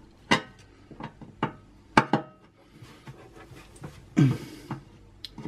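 Small crosshead screwdriver clicking and knocking against the metal fan cover and its screws inside an oven, several sharp clicks in the first couple of seconds. A short exhale about four seconds in.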